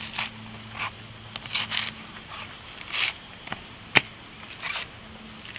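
Fibrous husk being pried and torn off a fresh coconut on a metal spike: a run of short, rough scraping rips as the coir fibre pulls away, with one sharp knock about four seconds in.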